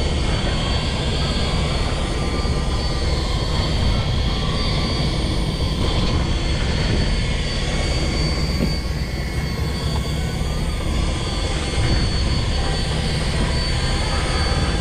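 A fishing boat's engine running with a steady, unbroken drone.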